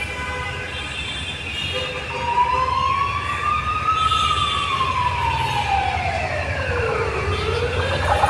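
A siren wailing slowly, its pitch rising, falling over about three seconds, then rising again, over a steady low rumble. Steady sustained tones sound at the start.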